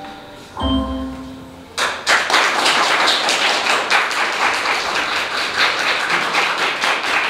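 The last chord of a song's recorded backing music rings and fades, then about two seconds in an audience starts applauding, a dense, steady clapping that carries on.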